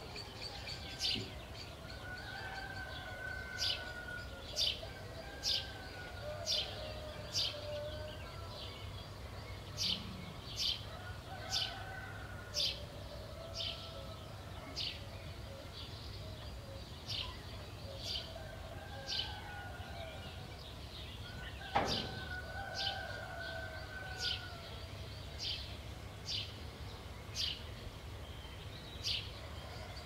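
Birds calling at dawn in the countryside: one bird repeats a short high chip about once a second, over softer, lower wavering calls and a steady low rumble. A single louder, sharper note comes about two-thirds of the way through.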